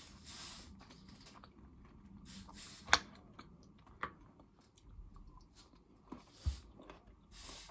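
Close-up chewing of fresh tomato and cucumber salad, with wet mouth sounds. A fork clicks sharply against the bowl about three seconds in, and softer clicks follow about a second later and again near the end.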